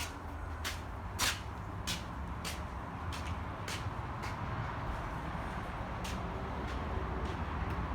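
A vehicle engine running with a steady low rumble, and a sharp click repeating evenly about every 0.6 seconds, fainter in the second half.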